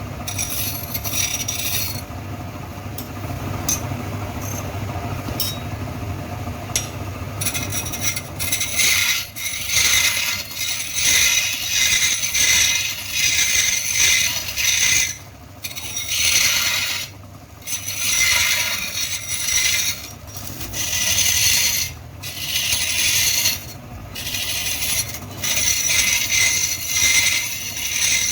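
Mechanical workshop noise: a steady low hum with scattered clicks, then from about eight seconds in, repeated scraping strokes, each lasting a second or two, with short pauses between.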